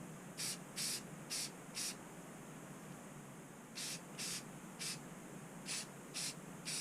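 Aerosol spray paint can sprayed in short hissing bursts, three or four quick squirts about half a second apart, repeated in a few groups, coating a fishing reel.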